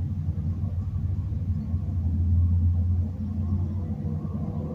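A low, steady background rumble that swells slightly midway.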